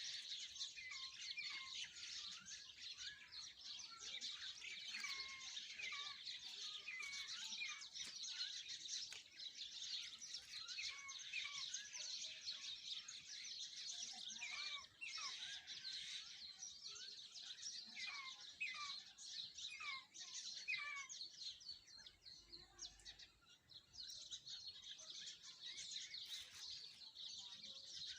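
A dense chorus of many small birds chirping and twittering. Over the first two-thirds, one bird repeats a short falling call roughly once or twice a second. The chorus thins briefly about three-quarters of the way through.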